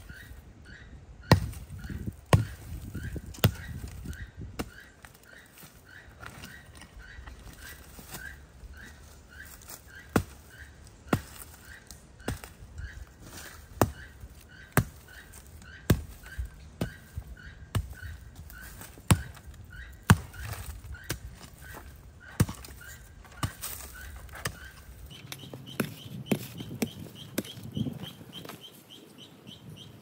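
Scrap concrete being broken up with repeated hard strikes, roughly one blow a second. A bird chirps over and over in the background, and a different, higher chirp takes over near the end.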